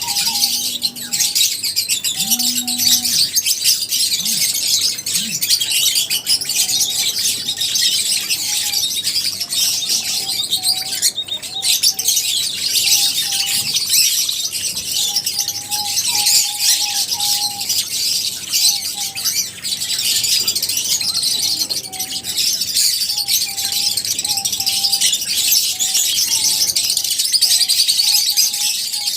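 A flock of lovebirds chirping: dense, continuous high-pitched chatter from many birds at once, with a short lower call repeating every second or so.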